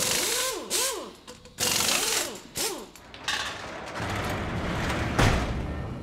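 Animated-title sound effects of a lock mechanism: bursts of mechanical clicking and ratcheting with whirring tones that swoop up and then fall in pitch, several times over. About five seconds in comes a deep heavy hit that rings out.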